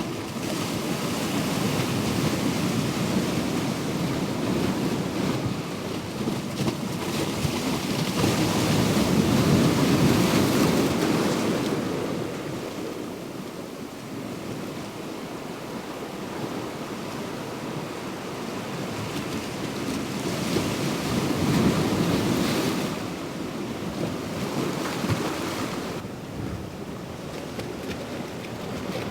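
Ocean surf breaking and washing in a continuous rush, swelling louder twice, around a third of the way in and again about three-quarters through.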